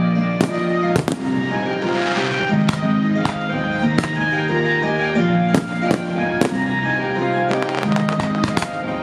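Aerial firework shells bursting in a series of sharp bangs, with a rapid cluster of bangs near the end, over music with long held notes.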